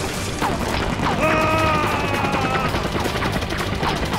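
Cartoon battle sound effects: a steady clatter of gunfire and explosions, with short falling chirps and a held, slightly falling tone lasting about a second and a half in the middle.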